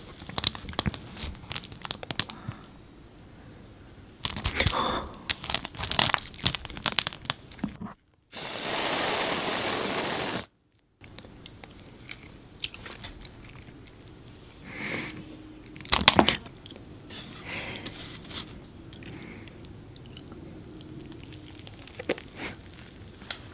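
Close-miked eating of chocolate layer cake studded with M&M's candies: irregular crunching of the candy shells and soft chewing. About a third of the way in, a loud steady hiss lasts about two seconds and cuts off abruptly.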